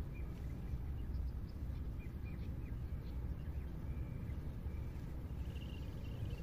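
Small birds chirping faintly in short high calls over a steady low rumble, with a quick run of chirps near the end.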